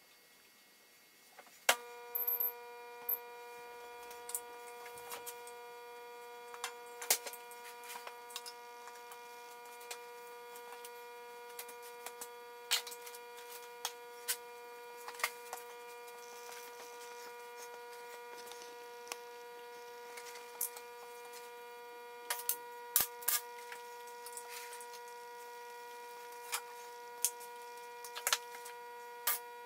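MIG welder switched on with a click about two seconds in, then running with a steady electrical hum made of several tones. Scattered light clicks and knocks of tools and the welding gun being handled sound over it.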